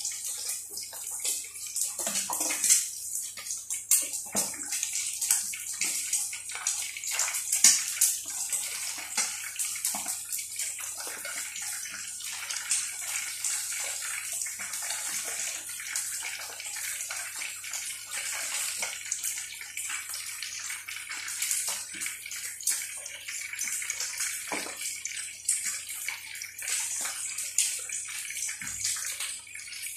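Chicken pieces deep-frying in a pot of hot oil, sizzling steadily with many small crackles and pops, busier in the first half, with an egg frying in a pan alongside.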